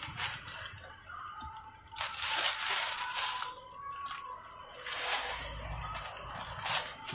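Plastic Maggi instant-noodle packet torn open and crinkled, with dry noodles crunching as they are broken up, in several bursts.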